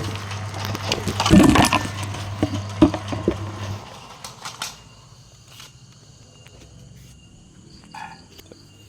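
Bamboo thinning machine running with a steady motor hum and a loud noisy burst about a second and a half in, as bamboo is fed through its blades. The hum stops about four seconds in, leaving a few light clicks and knocks.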